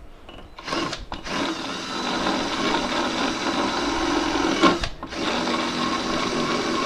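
A 10 mm drill spinning a rotary wood-rasp burr bit against a wooden block, shaving and grooving the wood. After a short spurt about a second in it runs steadily, cuts out briefly near five seconds, then runs again.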